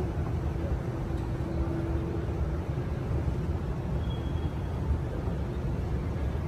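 Airport terminal hall ambience: a steady low rumble and hiss, with a faint hum for a second or two near the start.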